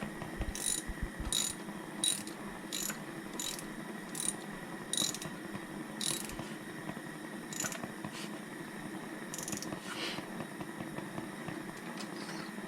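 Socket ratchet clicking on its back-swings while turning a spark plug in the cylinder head. There is a click about every 0.7 s for the first five seconds, then only a few slower, sparser clicks.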